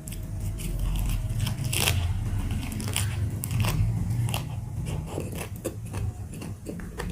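Close-miked eating: irregular crunching bites and chewing of crisp food, many sharp crunches in quick succession.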